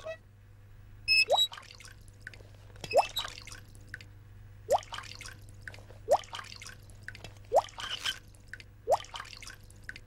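Cartoon water-drop sound effect of a leaky faucet dripping into a sink: short plinking drops, each rising quickly in pitch, about six of them roughly every one and a half seconds.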